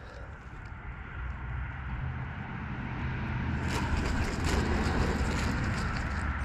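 Rumble of a passing motor vehicle, growing louder over the first few seconds and then holding steady.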